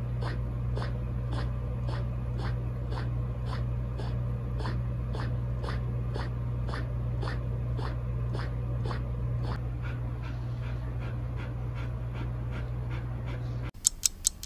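Bernedoodle puppy panting rhythmically, about three breaths a second, over a steady low hum. A few sharp clicks come near the end.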